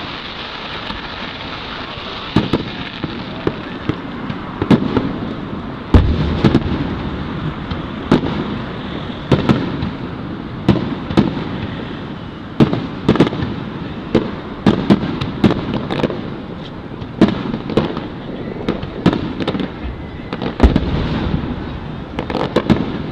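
Aerial fireworks bursting in a quick, irregular barrage of sharp bangs, the heaviest about six seconds in and again near the end, over the steady murmur of a large crowd.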